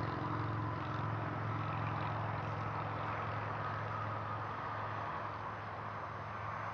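A steady low mechanical hum, like an engine or motor running at an even speed, with a faint higher whine above it.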